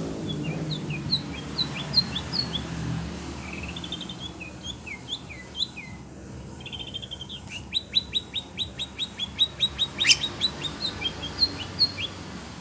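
Oriental magpie-robin singing a string of sharp, varied chirps and slurred whistles. In the middle it breaks into a fast run of repeated notes, about five a second. A vehicle's low rumble fades out in the first few seconds.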